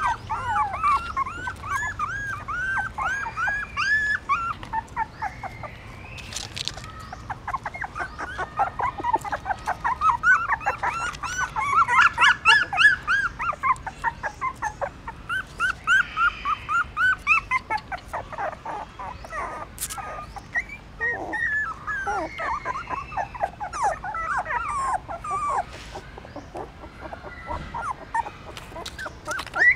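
Young puppies whimpering and squeaking in a rapid run of short, high cries, several a second, louder around the middle.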